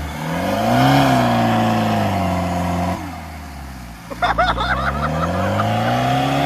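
Off-road SUV engine revved hard twice as a vehicle stuck in slush tries to drive out: the pitch climbs, holds, drops about three seconds in, then climbs and holds again. A brief shout comes just as the second rev begins.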